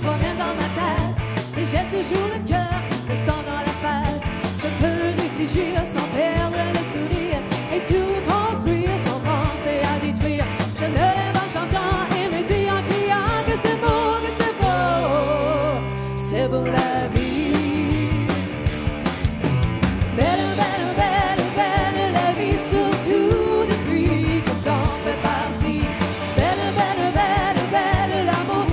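A woman singing a pop-rock song live with the band, an electronic keyboard and a steady beat behind her. About halfway through, the beat drops out for a couple of seconds under a held chord, then comes back in.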